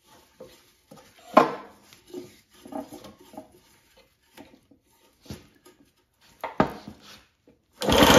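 Hands winding a starter rope onto the open rope-start pulley of a 1957 Craftsman two-stroke mower engine: light clicks and knocks of rope and metal. Near the end, a hard pull on the rope spins the engine over, which is the loudest sound.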